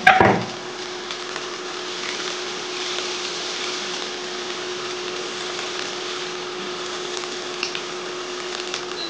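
Sliced onions and green chillies sizzling softly in a dry nonstick pan with no oil, a spatula scraping against the pan, loudest right at the start, with a few light taps later. A steady hum runs underneath.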